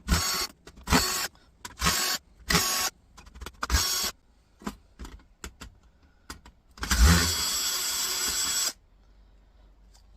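Electric drill driver run in about five short bursts, then one longer steady run of about two seconds, backing screws out of a laptop docking station's casing.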